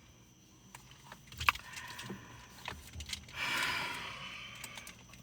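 Car key fob and keys being handled: scattered small clicks, a sharper click about a second and a half in, and a short jangle about three and a half seconds in.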